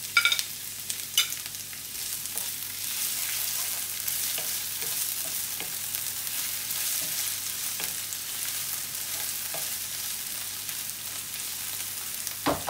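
Chopped onion sizzling steadily in hot ghee in a frying pan, stirred with a wooden spoon that scrapes and taps the pan now and then.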